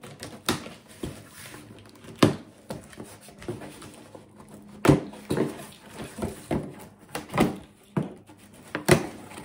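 A cardboard shipping box being opened and unpacked by hand: irregular rustling and scraping of cardboard, broken by several sharp knocks.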